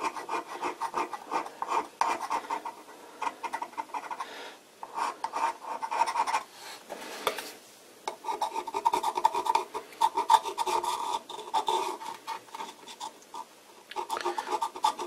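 Knife blade scraping along the edge of a metal lathe-spindle thrust ring in runs of quick, rasping strokes with short pauses between them. It is scraping off a dried deposit left by the spindle oil.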